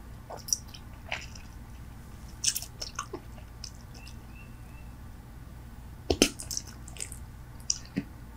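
Bubble gum chewed close to the microphone: irregular wet clicks and smacks, with a louder cluster about six seconds in.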